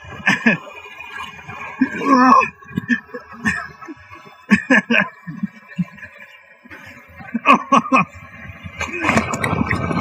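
Knocks and scrapes as a GoPro camera slides down a wet granite water slide, then a splashing rush of water about nine seconds in as it plunges into the pool below.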